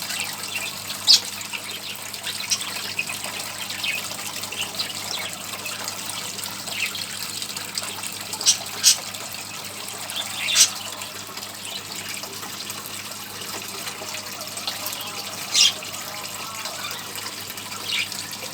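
Water trickling and splashing steadily from a small homemade bird fountain, with a few brief sharper splashes standing out now and then.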